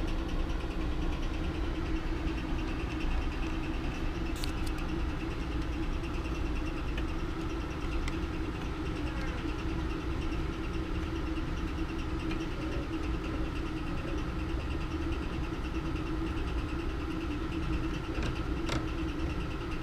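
A steady machine hum with a low drone and a few faint clicks.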